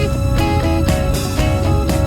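Background music: a guitar-led track with a steady beat and bass.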